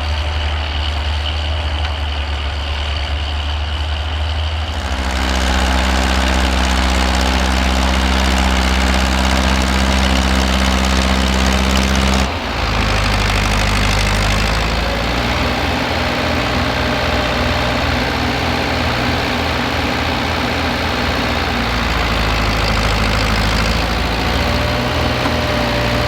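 Tractor engine running steadily. The engine note jumps to a different pitch about five seconds in and again about twelve seconds in.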